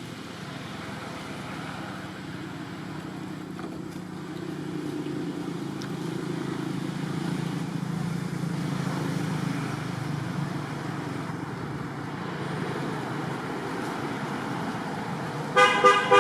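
A motor vehicle's engine running past, swelling and then easing off. Near the end a horn honks twice briefly, the loudest sound.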